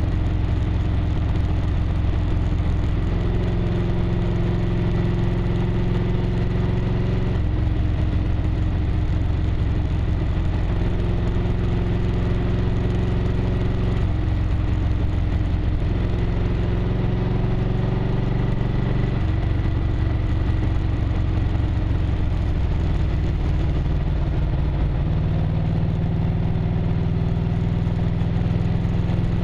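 1998 Harley-Davidson Road Glide's air-cooled V-twin engine running under way, heard from a bike-mounted camera. Its pitch steps up and down every few seconds as the throttle and gears change through the curves.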